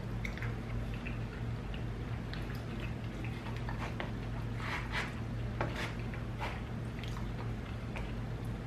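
Close-miked eating sounds: chewing and mouth clicks, and a fork cutting into a sauce-covered burrito in a foam takeout container, with a cluster of sharper crackles around the middle. A steady low hum runs underneath.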